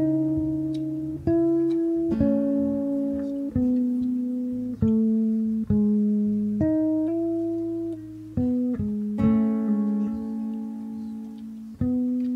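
Slow guitar music: notes and chords are plucked one at a time, about once a second, and each rings and fades before the next.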